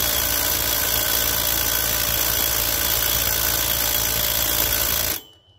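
Cordless impact driver hammering steadily on the 5/8 bolt of a riding mower's engine pulley, then cutting off abruptly near the end. The bolt doesn't break loose: the impact driver is not big enough for the job.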